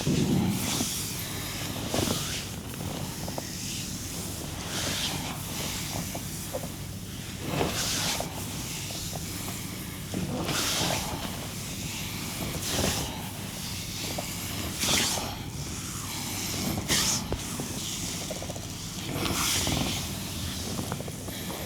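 Massage strokes, hands sliding over skin: a rubbing swish about every two seconds, over a steady low hum.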